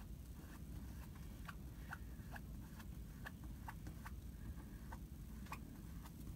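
Faint, irregular light ticks, about two a second, from a squeegee working Couture ink across a Chalk Couture silkscreen transfer laid on a T-shirt, over a low background hum.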